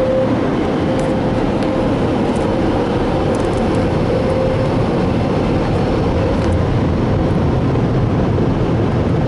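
Car wash air dryers blowing, a loud steady rush of air with a constant hum underneath.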